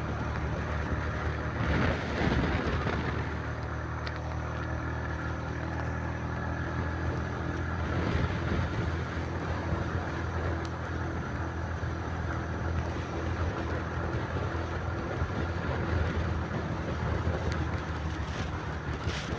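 Motorcycle engine running steadily at cruising speed, with road and wind noise.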